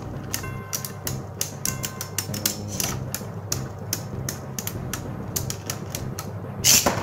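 3D-printed Beyblade spinning tops clashing in a plastic stadium: rapid, irregular clicking hits, several a second, each with a short ring, and one louder hit near the end.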